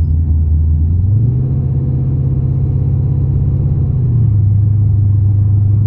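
Holden VX Commodore SS's 5.7-litre LS1 V8, fitted with an aftermarket exhaust and intake, running at low revs. The revs lift slightly about a second in and settle back down about three seconds later.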